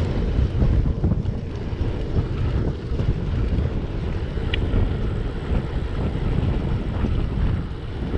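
Wind buffeting the microphone of a moving bicycle, a steady low rumble.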